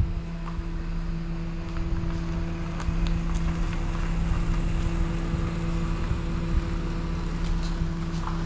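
FPV quadcopter's motors spinning at idle while armed on the ground, a steady hum with two constant tones, while a car drives slowly past.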